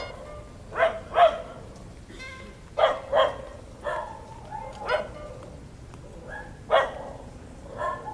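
A dog barking repeatedly: about eight short barks, some in quick pairs.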